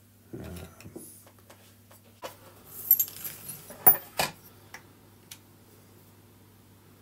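Small metal motor-mount fixings clinking and clattering on a table, with a few sharper knocks as a digital kitchen scale is set down and the brushless motor placed on it, the loudest about three and four seconds in.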